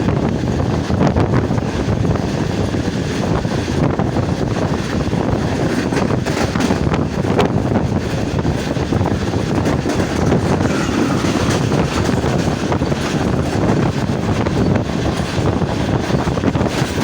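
Passenger express train running past at speed: a steady loud rush of wheels on rail, with scattered light clicks from the wheels.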